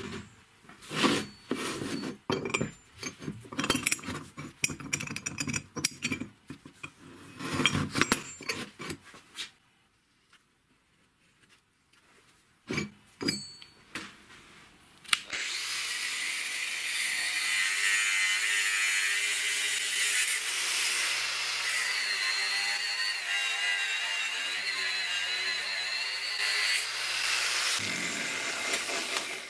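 Steel parts clanking and knocking on a bench and in a steel bench vise as a wheel bearing hub is clamped, then two sharp clicks. About halfway through, an angle grinder's cut-off disc starts cutting into the hub's steel flange: a steady, loud, hissing grind with a high whine that runs until just before the end.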